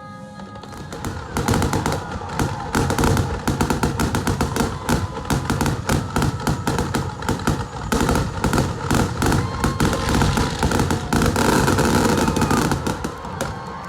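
Aerial fireworks going off in a dense, rapid barrage of bangs, several a second, starting about a second in and easing off near the end.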